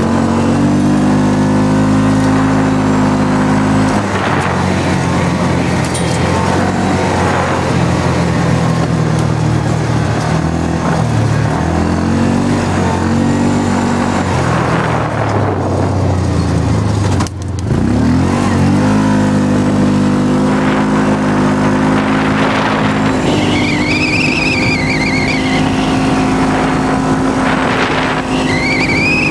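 Yamaha Rhino side-by-side's single-cylinder engine running hard at speed, its pitch rising and falling with the throttle. Just past halfway it briefly drops off and then climbs again. A wavering high-pitched squeal comes in twice near the end.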